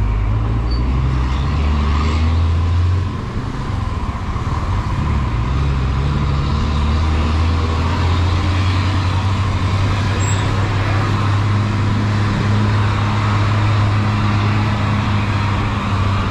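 Honda Twister 250 single-cylinder four-stroke engine running at steady road speed, with a steady rush of wind noise over it. The engine note dips briefly about three seconds in, then holds steady again.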